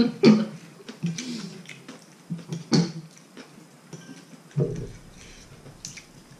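Eating sounds at a table: chopsticks and a metal spoon clicking against a large soup bowl, with a few short low sounds and a soft knock about four and a half seconds in.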